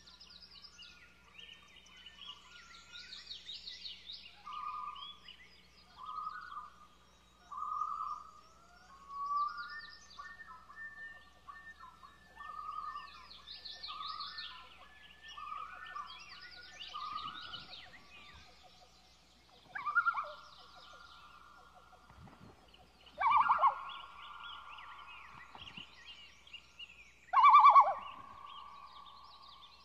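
Common loons calling over a lake: a run of short repeated notes about once a second, then three loud drawn-out wailing calls in the second half, each starting with a quaver. Small songbirds chirp and trill throughout.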